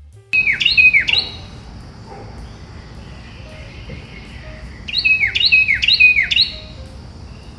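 A bird calling: two series of three sharp calls, each sliding steeply down in pitch, with a pause of a few seconds between the series, over a steady background hiss.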